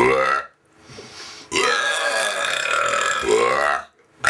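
Deliberate burps: a short one at the start, then a long, drawn-out burp of about two seconds beginning about a second and a half in, its pitch rising and falling.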